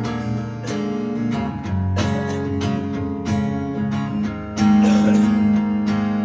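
Acoustic guitar strumming chords at an even pace, the instrumental opening of a song before the vocals come in.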